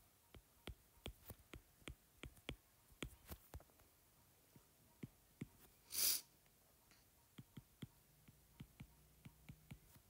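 Stylus tips tapping and clicking on a tablet's glass screen during handwriting, in two clusters of quick light clicks. A short breathy hiss, the loudest sound, comes about six seconds in.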